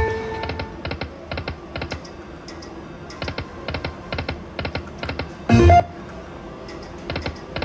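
Slot machine buttons clicked over and over, often as quick double clicks, with the machine's electronic music and sounds playing low underneath. A short loud burst of sound comes about five and a half seconds in.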